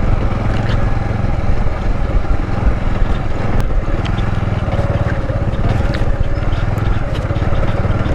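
Motorcycle engine running steadily while riding along a dirt track.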